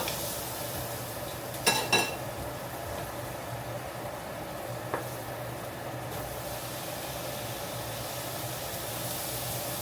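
Food frying in a hot pot with a steady sizzle. Two sharp metallic clinks, a utensil striking the pot, come about two seconds in, and a lighter one comes about five seconds in.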